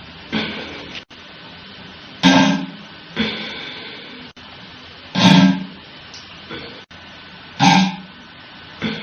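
Guitar music: about six strummed chords at uneven intervals, each struck sharply and then ringing out and fading.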